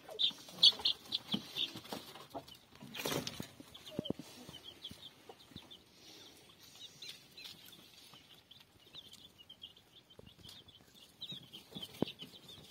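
Chicks peeping in a constant stream of short, high cheeps. A brief louder rustle comes about three seconds in, with a few soft knocks here and there.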